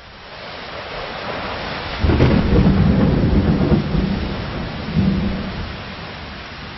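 Steady heavy rain fading in, then a thunderclap breaks about two seconds in and rolls on for a couple of seconds, with a second crack about five seconds in before it dies away into the rain.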